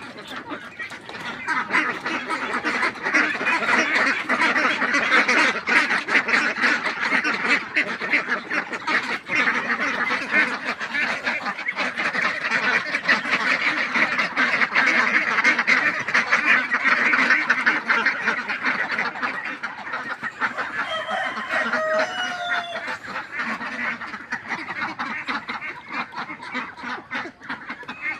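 A flock of ducks quacking and chattering together at feeding time, a dense continuous din that eases a little in the last third.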